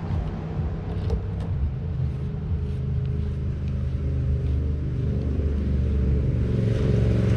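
A motor vehicle's engine running steadily, growing gradually louder, with a few faint clicks over it.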